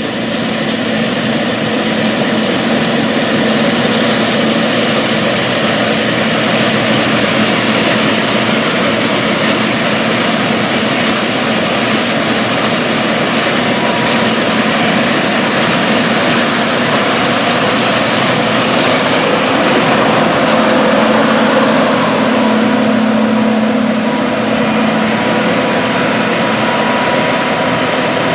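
John Deere S Series combine running steadily while harvesting wheat: a constant engine hum under a dense, even rush of machinery noise.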